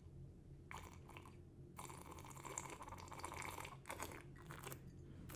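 Close-miked ASMR mouth sounds, wet and chewing-like, in short spells with a longer stretch of about two seconds in the middle.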